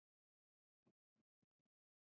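Near silence, with a few very faint short ticks in the second half.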